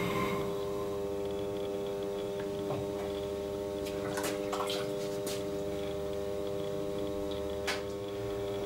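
Electric potter's wheel running with a steady hum, with a few faint drips and light clicks as a hand goes into the water. A propane torch's roar dies away at the very start.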